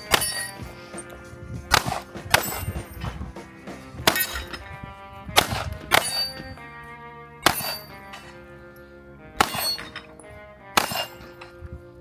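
Gunshots spaced roughly one to two seconds apart, about eight in all, each hit leaving a steel plate target clanging and ringing on.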